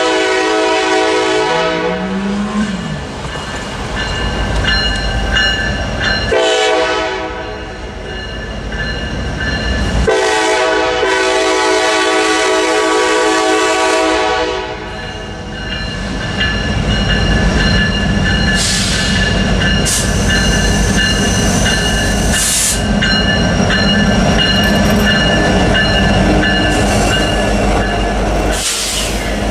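Norfolk Southern diesel locomotive's air horn sounding for a grade crossing in three long blasts, the last ending about halfway through, while the crossing bell rings steadily. The lead locomotives' diesel engines then come close and pass, with wheels clattering on the rails, growing louder.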